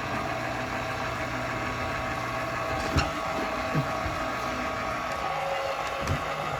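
KitchenAid RRK5A heavy-duty stand mixer's motor and freshly greased new gears running steadily on a test run after the gear replacement. A few short knocks sound about three and four seconds in and again near the end.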